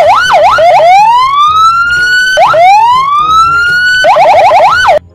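Police patrol car's electronic siren cycling through its tones: a few quick up-and-down yelps, two long rising wails that drop back abruptly, then a burst of very fast warbling before it cuts off suddenly near the end. Loud.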